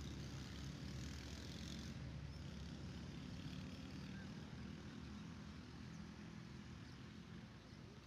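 A low, steady engine hum, with a faint hiss over it that stops about two seconds in.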